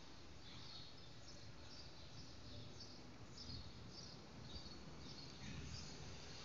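Faint ambient noise with a small bird chirping over and over, short high chirps about twice a second that stop near the end.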